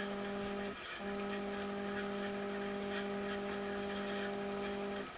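Y-axis stepper motor of a homemade RAMPS-driven 3D printer moving the bed, giving a steady whine with overtones. It stops briefly just before a second in, then runs again until shortly before the end.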